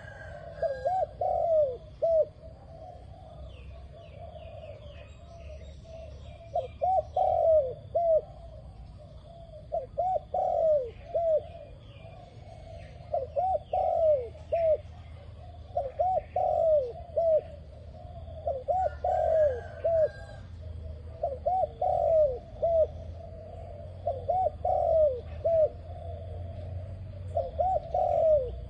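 Dove cooing in repeated phrases of a few short notes, a phrase every two to three seconds, with faint higher chirps of other birds.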